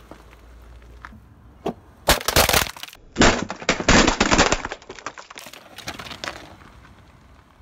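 Rigid plastic cracking and shattering under a slowly rolling car tyre: a few light clicks, then two loud bursts of dense sharp cracks about two and four seconds in, dying away to a few scattered crackles.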